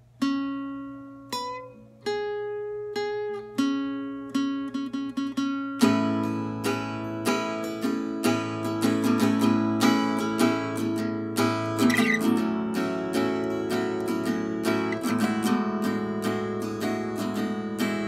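Acoustic guitar playing a three-note riff plucked from one fretted shape on the D, G and B strings, with some notes bent so they waver, moving from the 11th fret to the 5th and 7th. Sparse, ringing single plucks for about the first six seconds, then busier, faster picking.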